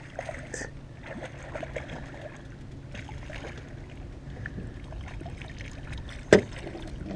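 Hooked lake trout thrashing and splashing at the water's surface beside an aluminium boat, over a steady low rumble. A single sharp knock sounds about six seconds in.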